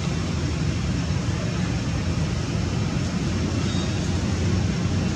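Steady low rumble of outdoor background noise, with no distinct calls or knocks.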